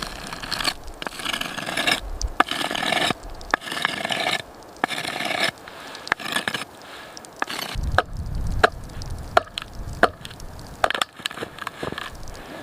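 Wood being worked by hand: several stretches of scraping in the first half, with sharp knocks scattered throughout.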